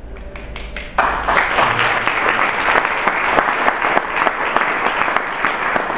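Audience applauding: a few scattered claps, then full applause breaking out about a second in and carrying on steadily.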